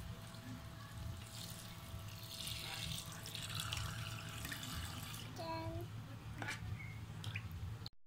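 Water from a toy sink's faucet trickling and dripping onto a plastic plate and into the plastic basin. A short voice sound comes a little past halfway.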